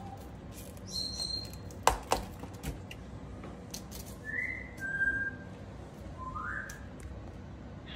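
Several short, separate whistled notes, some rising in pitch, not a tune. Two sharp clicks a little under two seconds in, from the paring knife working the cauliflower over a metal tray.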